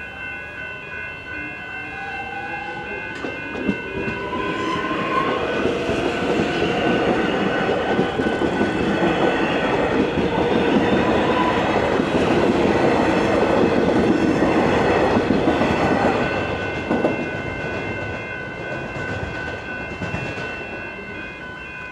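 Electric suburban train passing through the level crossing, its motors whining up in pitch over the first few seconds, then wheels and carriages clattering over the rails, loudest about midway and fading after. The crossing's warning bells ring steadily and stop shortly before the end.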